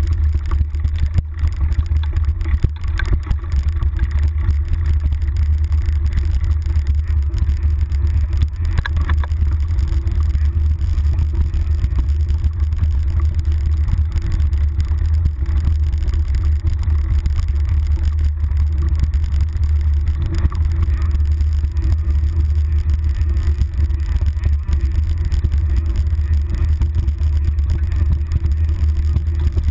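Wind buffeting and trail vibration on a handlebar-mounted GoPro on a mountain bike going downhill: a steady low rumble, with a few sharp knocks from bumps in the first ten seconds.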